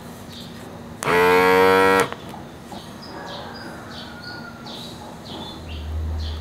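A single loud, low animal call lasting about a second, starting about a second in, over faint bird chirps that repeat throughout. A low thud-like rumble comes near the end.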